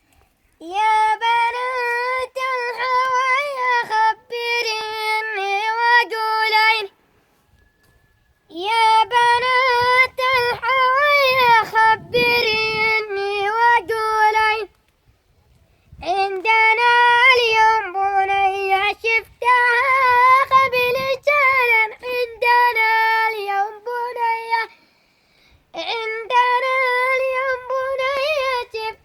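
A boy singing a traditional Yemeni-style melody solo and unaccompanied, in a high, ornamented voice. He sings in long phrases with three short breaks for breath.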